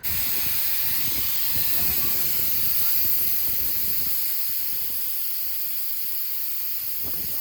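Steady hiss of rushing gas that starts suddenly and holds evenly, during repair of a leaking AC condenser coil.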